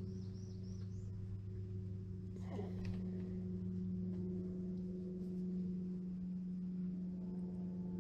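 Distant lawnmower engine running steadily, a low hum that lasts throughout. In the first second a bird gives a short run of high chirps, and about two and a half seconds in there is a brief rustle.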